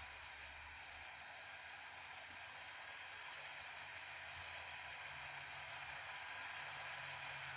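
Distant John Deere tractor engine running steadily while pulling a cultivator through the field, slowly getting louder as it comes closer.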